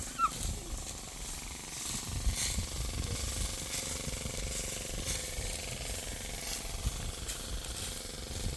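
Dry wheat stalks being cut and gathered by hand: irregular crisp rustling strokes over a steady low rumble.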